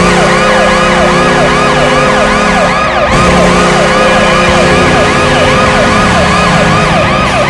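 Washington Capitals arena goal horn sounding a steady, loud chord, with a siren sweeping up and down about three times a second over it.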